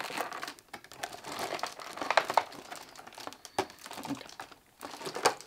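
Clear plastic figurine packaging crinkling as it is handled, with irregular small crackles and clicks.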